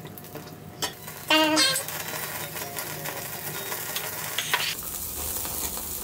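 Meat sizzling in a hot pan, the sizzle growing steadier after the first second or so. There is a tap about a second in, followed by a short, loud pitched squeak.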